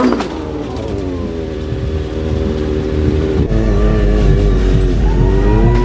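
Sportbike engine held at steady high revs during a wheelie. About halfway in the sound changes abruptly to another bike's engine, which dips and then revs up near the end.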